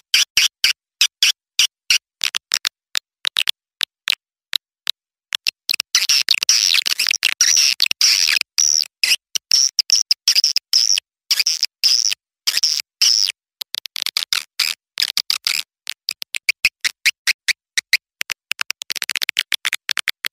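Young swiftlets' calls as played from a swiftlet-house lure recording. A fast train of sharp, high chirps thickens into continuous twittering chatter for several seconds in the middle, thins out, then thickens again near the end.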